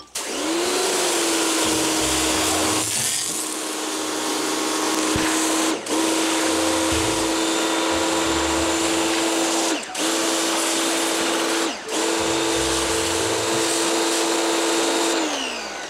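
Pressure washer running, its motor hum steady under the hiss of the water jet blasting caked mud off a scooter engine. The spray cuts out briefly three times, and the motor winds down near the end.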